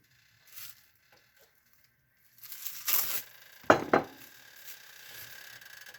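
Rustling of packaging being handled, then two sharp knocks as an ingredient container is set down on a kitchen counter.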